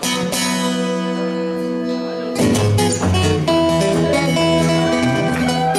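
Acoustic guitar playing an instrumental blues passage: a strummed chord struck at the start rings for about two seconds, then a steady alternating bass comes in under a picked melody with some notes sliding in pitch.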